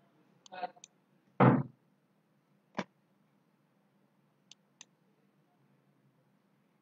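Computer mouse clicks: a pair of short sharp clicks about half a second in and a quick double click near the end, as windows are switched on a desktop. A louder dull thump about a second and a half in and a single sharp knock near three seconds.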